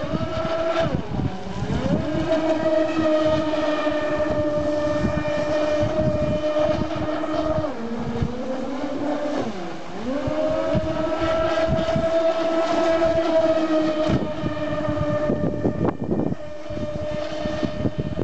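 Large RC speedboat's twin brushless electric motors whining at speed, with water and wind noise beneath. The pitch drops about eight seconds in, sinks lowest near ten seconds as the boat is throttled back, then rises again to a steady whine.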